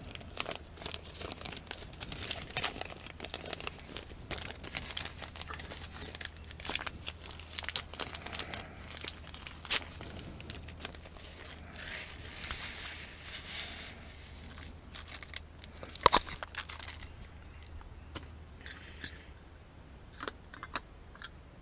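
Aluminium mess-kit pots and lids being handled: scattered light clicks and rustles, with one sharper knock about three quarters of the way through.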